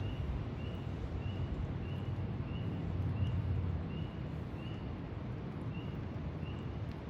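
A small animal calling with short, high-pitched chirps repeated evenly, just under two a second, over a steady low rumble.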